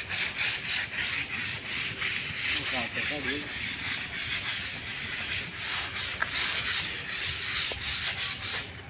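Sandpaper rubbed by hand over a steel chequer plate in steady, repeated strokes, scouring off rust before one side is painted.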